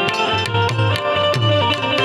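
Instrumental interlude of a Gujarati folk song: a harmonium plays a melody of held notes over tabla keeping a steady beat.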